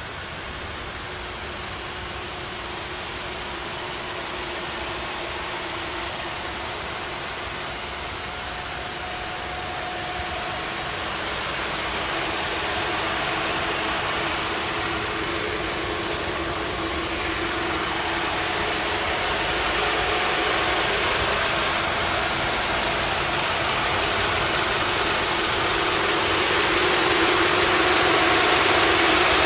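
2014 Toyota Camry's 2.5-litre four-cylinder engine idling steadily, growing gradually louder.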